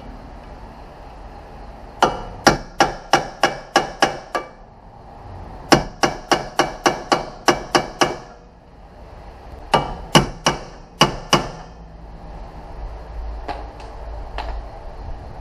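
Hammer blows on metal at a car's rear wheel hub: three runs of rapid, ringing strikes, about three or four a second with short pauses between, then a few lighter taps near the end.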